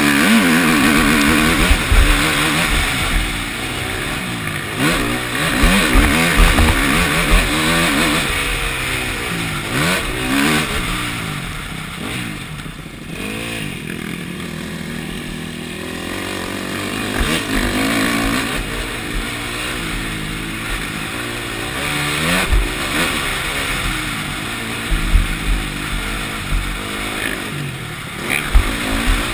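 Four-stroke KTM motocross bike engine at full race pace, revving up and dropping back again and again as the rider accelerates, shifts and backs off through the corners, with knocks from the bike over the rough track.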